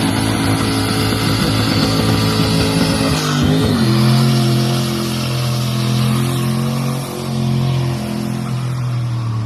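Car engine running under load while driving, the note changing about three and a half seconds in and then holding a steady pitch.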